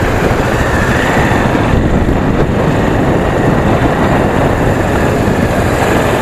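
Wind rushing over the microphone of a motorcycle ridden at road speed, with the engine running underneath as a steady, even noise.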